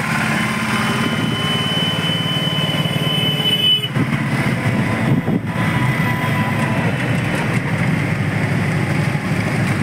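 Auto-rickshaw engine running steadily, heard from inside the moving vehicle along with road noise.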